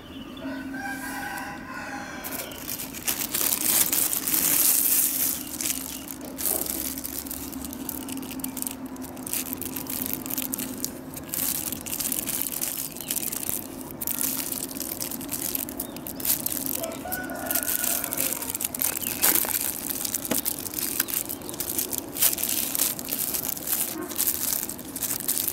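Blue plastic film crinkling and rustling as it is stretched and wrapped around a tree graft, in a dense run of crackles from about two seconds in.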